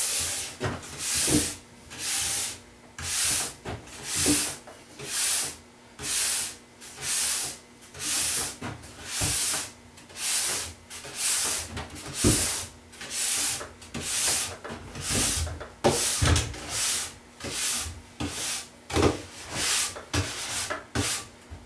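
Stainless steel brush scrubbing a snowboard base in regular strokes, about one a second, brushing the wax out of the base structure after a hot scrape.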